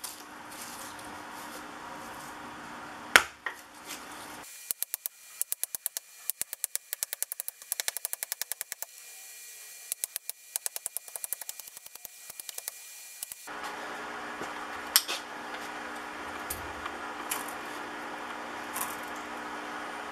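Hammer blows on a steel transformer core: one sharp strike about three seconds in, then a long quick run of strikes, roughly five a second, for about nine seconds, then a few scattered strikes near the end.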